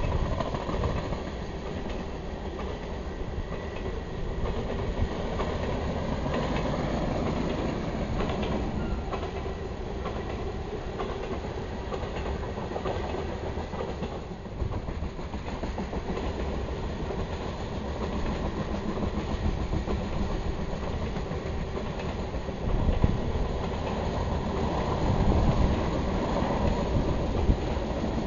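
A BNSF grain train's covered hopper cars rolling past, steel wheels on the rails making a steady rumble. A few louder knocks come about two-thirds of the way through and again near the end.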